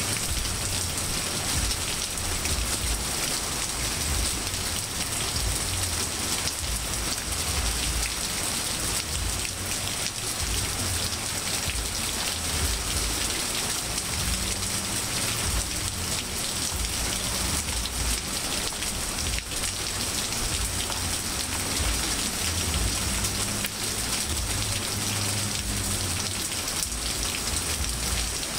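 Steady rain falling on grass, leaves and pavement, a dense even hiss with an uneven low rumble underneath.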